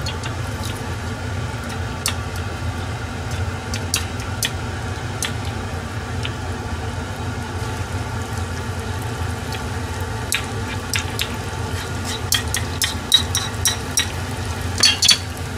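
Sardine fish-paste balls deep-frying in a pot of hot oil with a steady bubbling sizzle, as more paste is spooned into the oil. Metal spoons click against the bowl and pot, more often in the second half, over a steady low hum.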